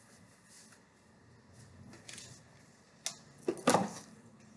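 Quiet room, then a click and two or three sharp knocks about three seconds in, from kitchen items (containers, a syrup bottle, a spoon) being picked up and set down.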